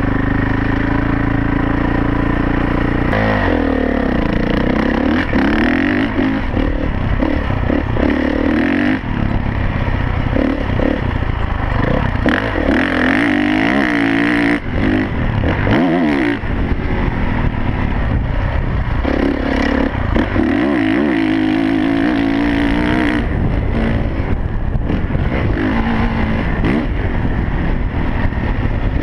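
Dirt bike engine revving up and down repeatedly as it accelerates, shifts and backs off over a motocross track, with wind rushing over the handlebar-mounted microphone.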